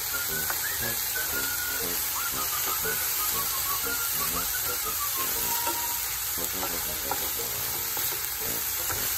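Diced zucchini and onion sizzling steadily in a frying pan while a wooden spoon stirs them around the pan.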